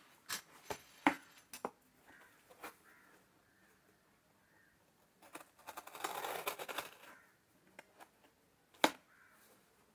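Cardboard shipping box being handled: light taps and knocks, then about two seconds of scraping in the middle as a tool works at the packing tape and label, and one sharp tap near the end.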